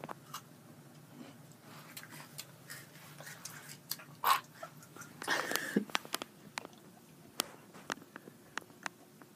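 A boy chewing a crunchy vanilla wafer, with scattered crisp crunches, then gagging at the sour taste: a short gag about four seconds in and a longer one about a second later.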